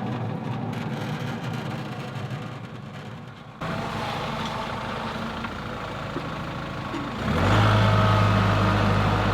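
Woods wood chipper running steadily as it works through a pile of brush. The sound drops off slightly, comes back abruptly about three and a half seconds in, and gets louder about seven seconds in with a strong low steady hum.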